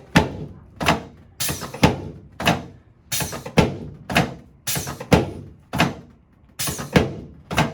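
Chiropractic table slamming down under a series of quick hand thrusts to the pelvis and lower spine: sharp knocks, roughly two a second, each with a short ringing tail.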